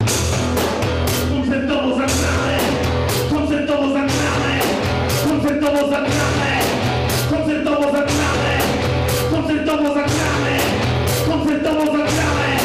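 A rock band playing: a drum kit keeping a steady beat with cymbal hits about twice a second, under guitar and singing.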